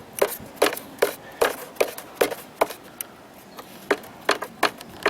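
Fuel pump relay inside a Jeep Grand Cherokee's TIPM clicking over and over, about two to three clicks a second with a short pause partway, as a scan-tool actuator test cycles it. The relay switches but the fuel pump does not run, a sign the fault lies in the TIPM's fuel pump circuit.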